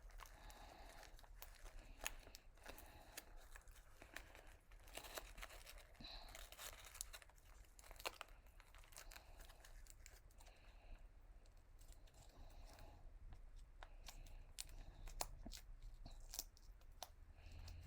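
Faint close-up eating sounds from a KFC meal: chewing, with scattered sharp crunches and clicks and bits of tearing and crinkling.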